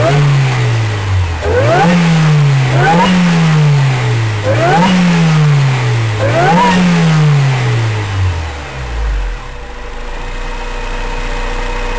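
Supercharged Acura RSX's 2.0-litre K-series four-cylinder engine blipped five times, each rev rising quickly and falling back slowly, with a higher whine climbing on each blip. Near the end it settles into a steady idle.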